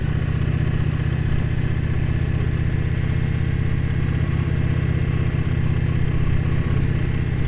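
Indian Challenger's big V-twin engine running steadily under the rider, holding an even engine speed with no revving.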